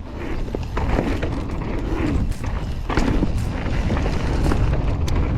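Wind buffeting the microphone and a mountain bike rattling and clattering as it rolls over rough ground.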